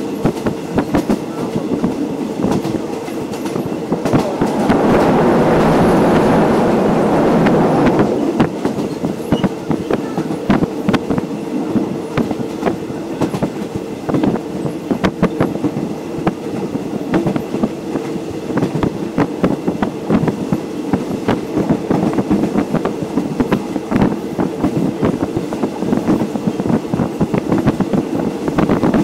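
Passenger train running along the track, with a steady rumble and the clickety-clack of its wheels over the rail joints. About four seconds in, a louder rushing noise swells up for about four seconds, then falls back.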